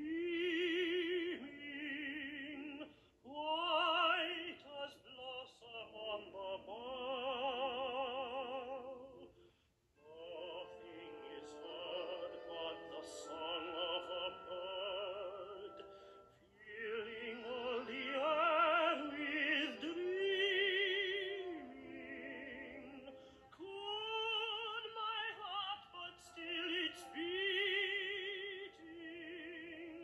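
Song from a film soundtrack: a solo voice singing long, sustained notes with strong vibrato in an operatic style, phrase after phrase with brief pauses between.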